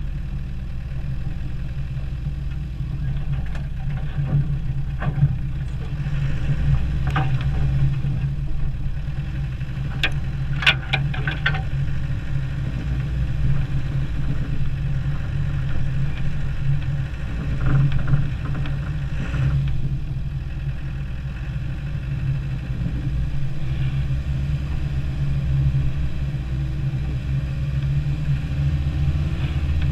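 Land Rover Defender 90 engine running steadily as the truck drives along a trail, a continuous low drone. Scattered short knocks and scrapes come through it, clustered about ten to twelve seconds in and again near eighteen seconds.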